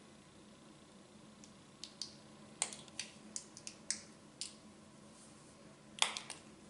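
Small hard faucet parts clicking and tapping against each other as they are handled and fitted: a run of light separate clicks, then a louder cluster of clicks near the end.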